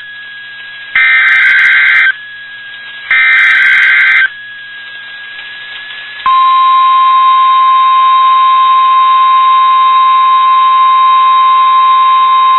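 NOAA Weather Radio SAME alert header: two buzzy digital data bursts, each about a second long and a second apart. About two seconds later the steady 1050 Hz warning alarm tone starts and holds.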